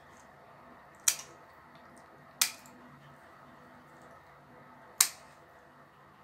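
Scissor-style pet nail clippers cutting through a puppy's claws: three sharp clicks spaced a second or more apart.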